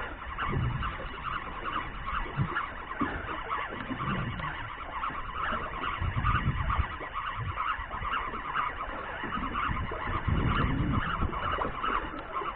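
Spinning fishing reel being wound in, a steady rapid whirring tick, as a small flathead is brought up on a long length of line. Low rumbles come and go underneath at irregular intervals.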